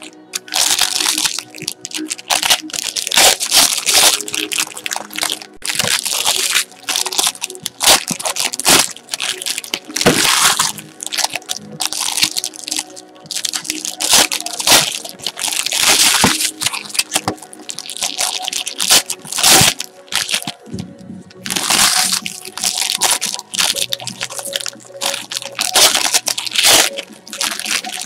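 Foil trading-card pack wrappers crinkling and tearing open, in repeated loud crackling bursts, over quiet background music.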